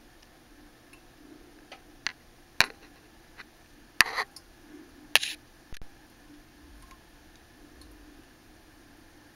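Handling noise: a scattering of sharp clicks and taps over a faint steady hum, the loudest three about two and a half, four and five seconds in.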